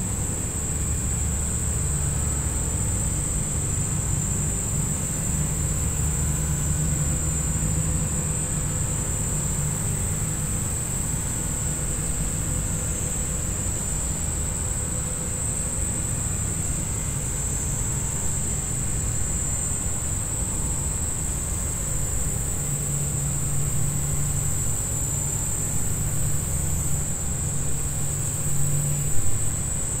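Outdoor ambience: a steady high-pitched insect drone over a low rumble, with a few louder bumps near the end.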